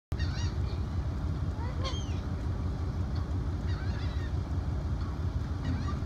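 Gulls giving short, arched cries a few times over a steady low rumble.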